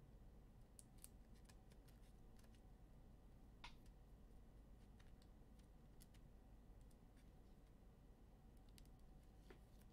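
Near silence: faint room tone with a low hum and scattered soft clicks and ticks, a slightly sharper one a little over three and a half seconds in.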